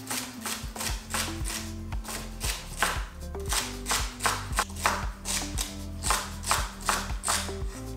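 Vegetables being chopped on a cutting board in rapid, fairly regular strokes, about two to three a second, over background music with a steady bass line.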